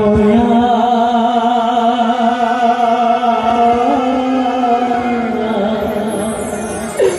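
Bengali jharni folk song: a male singer holds one long note with a wavering pitch, over a steady accompaniment, and drops away in a falling glide near the end.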